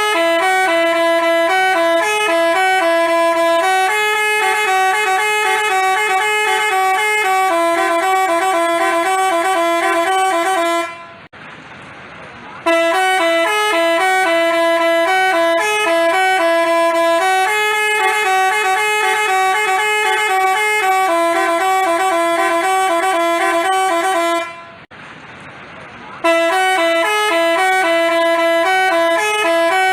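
Basuri telolet multi-tone bus horn playing a melody of stepped, held notes. It stops twice for about a second and a half, around eleven and twenty-five seconds in, leaving only a quieter hiss.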